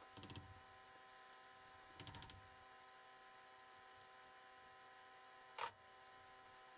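Near silence with a faint steady hum. A couple of faint short rattles come early, and one short sharp click about five and a half seconds in.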